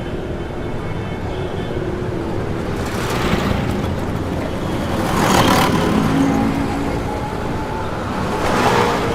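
Road traffic at the roadside: a steady rumble of engines and tyres, with vehicles passing close by about three seconds in, about five and a half seconds in (the loudest), and again near the end.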